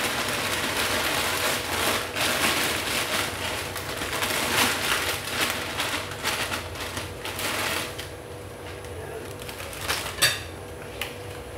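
Plastic bag crinkling and rustling as dried pancit canton noodles are shaken out of it into a pan of broth, stopping about eight seconds in. Then it is quieter, with a sharp click near the end.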